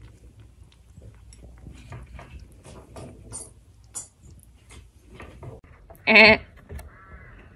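A kitten crunches dry kibble in small soft clicks, then about six seconds in a baby lamb bleats once, short, loud and quavering.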